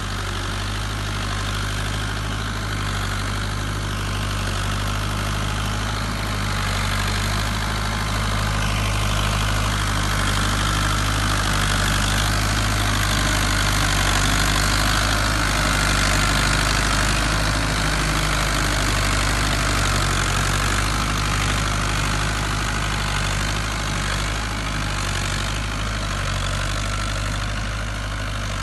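Fiat 70-66 tractor's four-cylinder diesel engine running steadily under load while pulling a plough. It grows louder as the tractor passes close by about halfway through, then eases off as it moves away.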